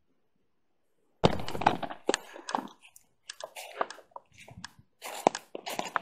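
Footsteps crunching through dry fallen leaves, starting about a second in as an uneven run of crunches.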